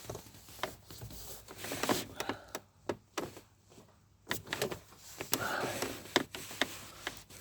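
Hands handling parts in a car's engine bay: a scattered series of sharp clicks and knocks, with short stretches of rubbing or scraping in between.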